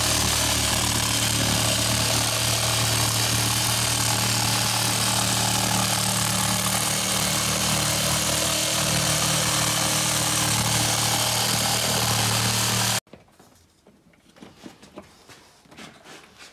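Parkside cordless jigsaw cutting through OSB board, the motor and reciprocating blade giving a loud, steady buzz. It cuts off suddenly about 13 seconds in, leaving only faint knocks from handling.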